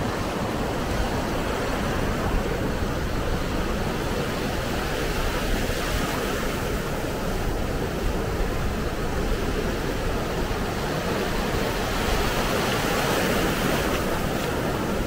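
Surf breaking on a beach: a steady, even wash of wave noise.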